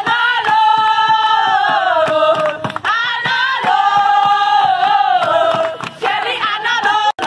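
Group of women singing loudly together in long held notes, each phrase sliding down in pitch at its end; three phrases with short breaks between them.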